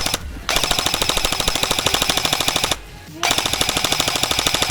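Airsoft electric gun firing on full auto in rapid, evenly spaced shots: a brief burst at the start, then two bursts of about two seconds each with a short pause between them.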